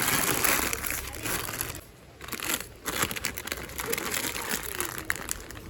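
Plastic cracker packet crinkling and rustling as it is handled, with some crunching. The sound is densest in the first second and a half, then comes in broken, crackly strokes.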